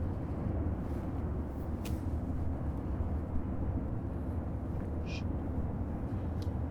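Steady outdoor ambience: a low rumble and hiss, with a faint click about two seconds in and a brief high chirp about five seconds in.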